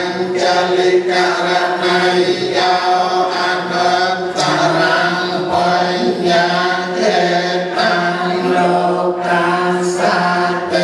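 Buddhist chanting by many voices together, held on a steady reciting pitch.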